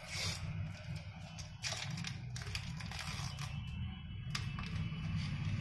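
Hands handling a replacement touch-screen glass panel and its plastic protective film: scattered light clicks and short crinkling rustles, over a steady low hum.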